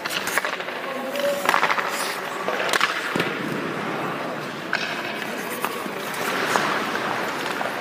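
Hockey skate blades scraping and carving on rink ice, with several sharp clacks of a stick blade on pucks.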